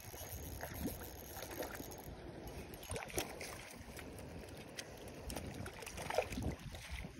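Water sloshing and light splashing with a low wind rumble on the microphone, and a few small scattered clicks.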